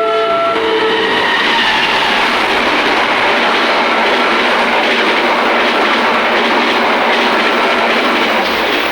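Passenger train passing close at speed with a steady loud rush of wheels and cars. A multi-note locomotive horn chord cuts off about half a second in.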